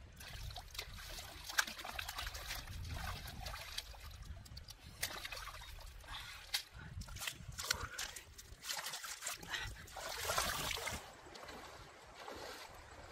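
Shallow river water splashing and trickling as a large caught fish is handled in it, with many short sharp splashes and a denser burst of splashing near the end.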